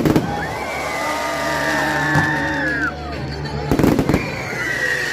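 Fireworks going off: a bang at the start and a cluster of bangs about four seconds in.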